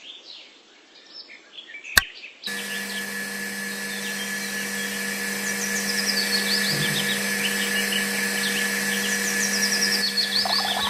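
A small switch clicks about two seconds in, and a small electric motor starts half a second later, running with a steady hum that grows slightly louder as it drives a miniature water pump through a rubber-band belt. Birds chirp faintly in the background.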